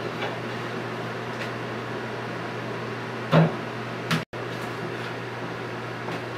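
Steady hum of a room air conditioner. A brief knock sounds a little past three seconds in, and just after four seconds the sound drops out for an instant.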